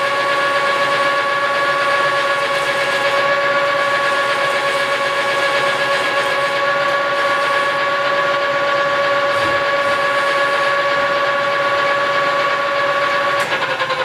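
Metal lathe taking a hand-fed radius cut on a steel chipper-drum shaft, the cutting tool squealing in the cut with a loud, steady, high-pitched tone. It cuts off suddenly near the end.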